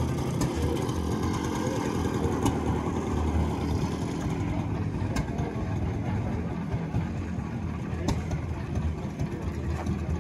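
An engine running steadily at idle, with a few sharp clicks over it.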